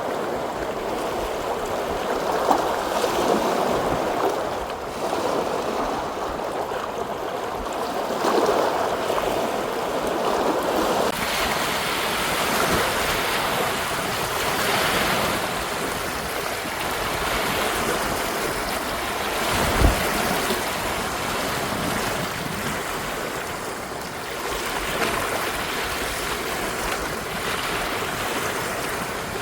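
Wind-driven lake waves breaking and washing against the shore, almost ocean-like, in surges that swell and ease every few seconds. A single low thump comes about twenty seconds in.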